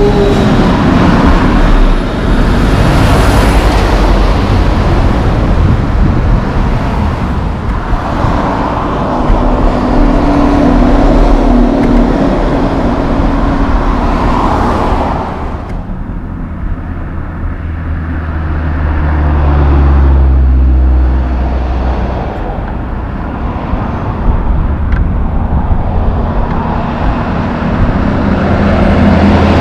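Road traffic with heavy diesel logging trucks passing: tyre and engine noise. About halfway through the high tyre hiss drops away, and a deep diesel engine rumble swells and fades as a truck goes by.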